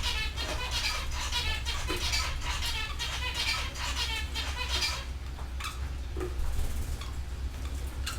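Canaries singing: bursts of rapid high trills about once a second, thinning to scattered short chirps after about five seconds, over a steady low hum.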